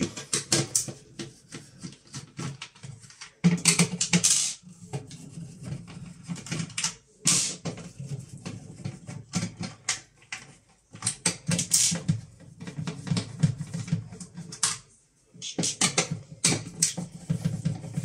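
Phillips screwdriver backing out the screws that hold together the plastic frame of an LG washing machine door. Bursts of rapid clicking and scraping come one after another, with short pauses between them.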